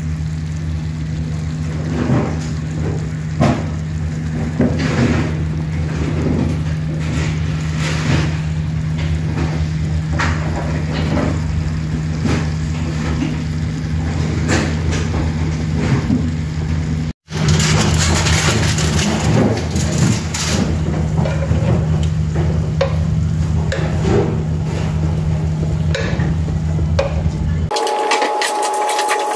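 Kitchen noise: a steady low machine hum with scattered light crackles and clicks over it. Near the end it cuts to a different, higher hum with quick metallic clicking as tongs turn chicken satay skewers on a pan.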